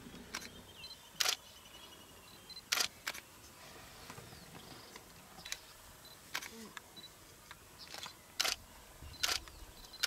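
Camera shutters firing in a series of sharp clicks at irregular intervals, some in quick pairs.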